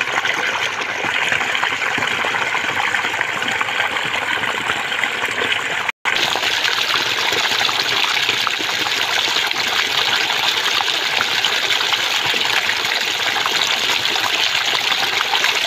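Water gushing over an edge and splashing into a shallow, frothy channel: a steady rush. It cuts out for an instant about six seconds in, then carries on.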